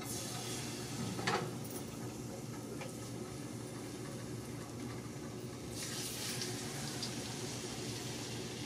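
Food frying in oil in a pan, a steady faint sizzle, with a brief knock about a second in.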